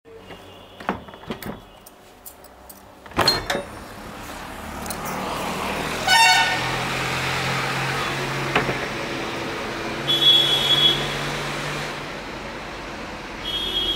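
Road traffic noise, with a vehicle horn sounding briefly about six seconds in and another horn-like tone around ten seconds. A few sharp knocks of the phone being handled come in the first few seconds.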